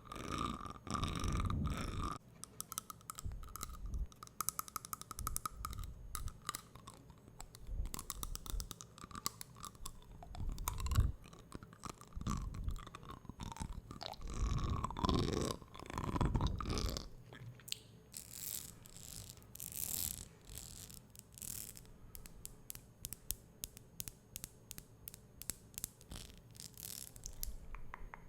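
Close-miked ASMR mouth sounds: wet clicks and smacks in quick irregular runs, with short low thumps mixed in during the first half.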